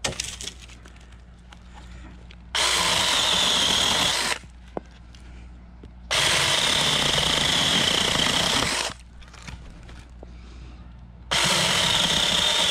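Battery-powered mini chainsaw running and cutting through a branch in three runs, each a steady whine lasting two to three seconds; the third starts near the end.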